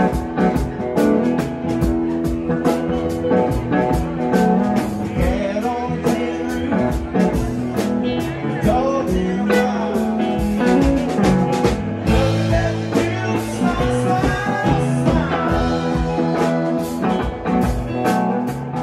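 Live rock band playing, with electric guitars, drum kit and keyboards, the drums and cymbals keeping a steady beat. Heard from beside the stage, mostly through the stage monitors with a little of the PA.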